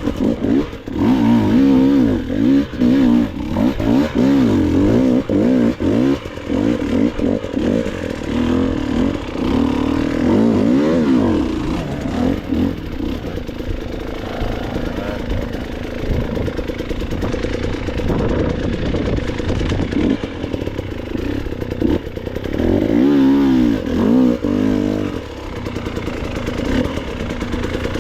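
Enduro dirt bike engine revving up and down as it is ridden over rough trail, the pitch rising and falling repeatedly, with bursts of revs near the start and again near the end.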